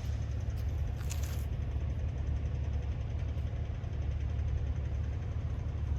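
An engine idling steadily with a low, even rumble, and a brief click about a second in.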